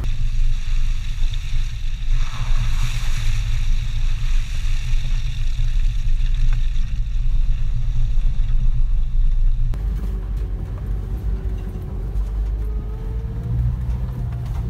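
1996 Suzuki Carry mini truck's small three-cylinder engine and tyres rumbling steadily as it drives through mud and slush. The sound is heard from outside along the truck's body at first, then from inside the cab after an abrupt change about ten seconds in.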